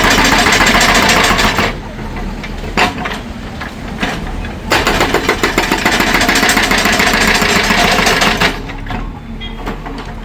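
Hydraulic concrete breaker hammering in rapid blows, in two bursts: one stops just under two seconds in and another runs from about the middle until near the end. A machine engine keeps running in the pauses.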